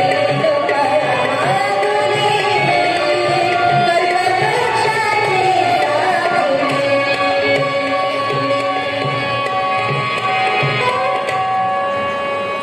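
Music with a steady hand-drum beat under a gliding melodic line, growing quieter toward the end.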